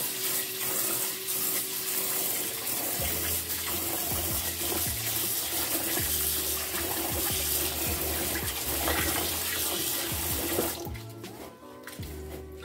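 Kitchen tap running into a rice cooker pot of rice in the sink, with hands swishing the grains as they are rinsed. The water shuts off near the end.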